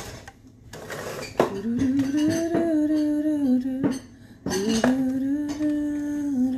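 A woman humming in two long, nearly level phrases, with a few light clinks of kitchen dishes and utensils.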